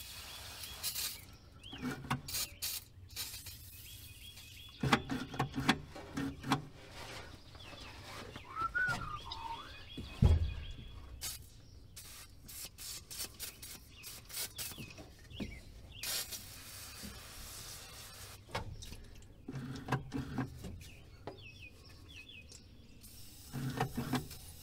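Scattered clicks and clanks of hands working the carburetor and throttle linkage on a 1976 Ford F-150's engine, with one heavy thump about ten seconds in. Birds chirp in the background.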